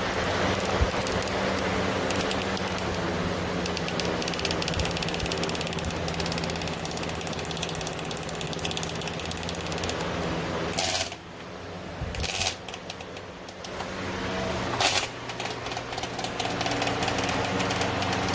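Pelonis 20-inch box fan running with a steady hum and a rapid clattering tick. About eleven seconds in the sound drops away, and a few seconds later it comes back with a lower-pitched hum.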